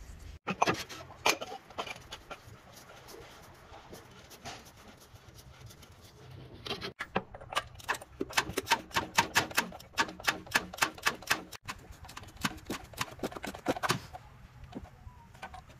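Ratchet wrench clicking in quick, even runs as a socket turns a fastener, about six clicks a second and densest in the middle, with a few scattered metal clicks and knocks earlier on.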